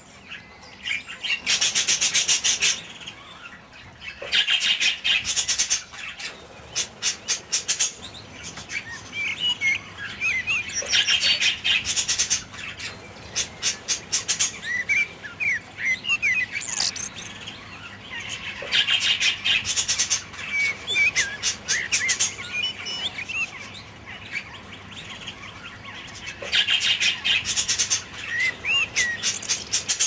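Budgerigars chattering: bursts of fast, scratchy warbling that come back every few seconds, mixed with short whistled chirps.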